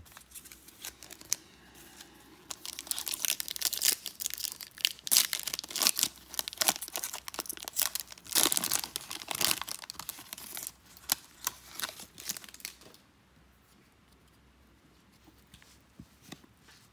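Foil wrapper of a 2022 Topps Series 1 hobby pack being torn open and crinkled by hand. The dense crackling starts a couple of seconds in, runs for about ten seconds, then stops, leaving a few faint clicks.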